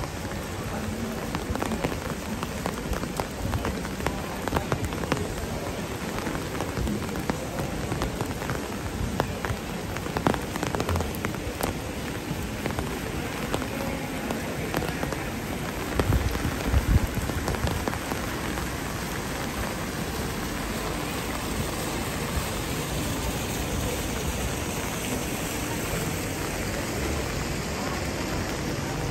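Rain falling steadily, with many close drops ticking through the first half. A few low thumps come about sixteen seconds in.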